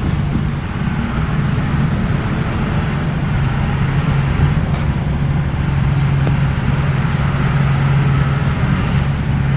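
Bulldozer's diesel engine running steadily, with a strong low hum and a few faint clicks partway through.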